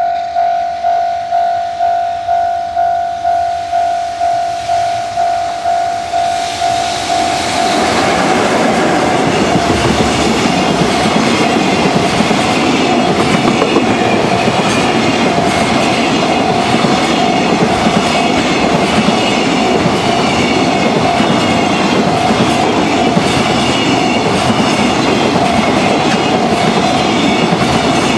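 Japanese level-crossing alarm bell ringing in quick repeated dings. About seven seconds in, a long EF66-hauled container freight train starts passing close by, its wheels clicking regularly over the rail joints, with the bell still ringing underneath.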